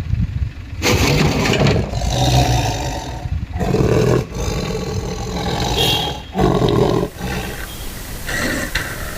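Leopard growling and snarling in several long, rough bursts, the strongest about four and six and a half seconds in, after a low rumble in the first second.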